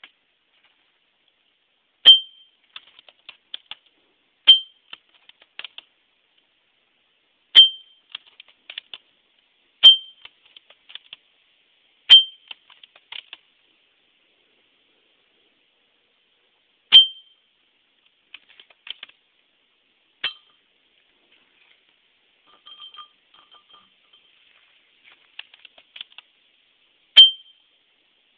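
Airsoft shots from a WELL L96 sniper rifle hitting a glass bottle: seven sharp, ringing clinks a few seconds apart, plus one weaker one, each followed by faint scattered ticks.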